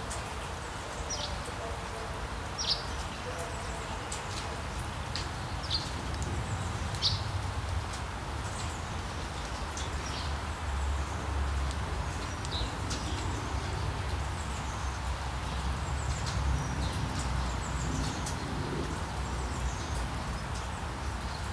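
Small birds chirping over a steady hiss of rain: short high chirps that drop in pitch, about one a second at first, then more scattered.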